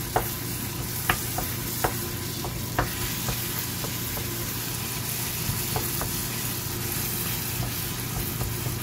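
Chicken curry sizzling in a nonstick frying pan as a wooden spatula stirs it, the spatula clacking against the pan a few times in the first three seconds and twice more around six seconds in.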